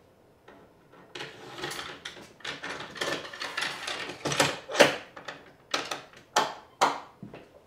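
An aluminium Festool guide rail being nudged and slid across wooden boards into alignment: scraping and rubbing of the rail on the wood starting about a second in, with sharp knocks, several of them spaced through the second half.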